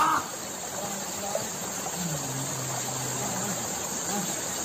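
Steady high-pitched insect buzzing in the background. A short loud cry sounds at the very start, and a faint low drawn-out voice is heard about two seconds in.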